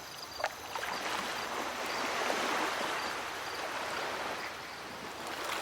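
Sea water washing and lapping in a harbour, a steady rushing noise that swells in the middle and eases off toward the end.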